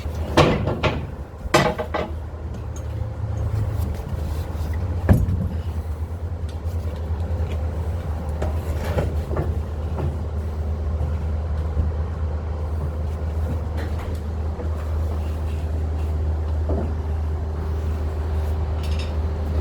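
Engine of a welding generator set running steadily at constant speed, a low drone, with a few sharp metal knocks in the first five seconds.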